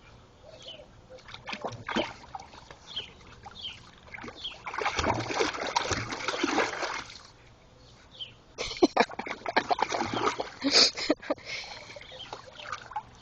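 A dog splashing in a water-filled barrel, pawing and plunging in after balls at the bottom. There is a long stretch of splashing in the middle, then a quick run of sharp splashes.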